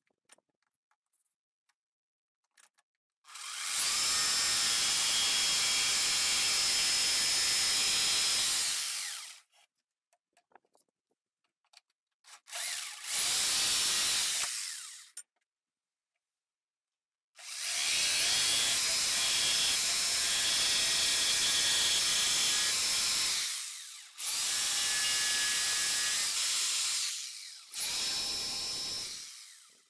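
Electric power tool cutting into a fibreglass dash to enlarge a switch-panel cutout. It runs in five bursts of a few seconds each, with short pauses between.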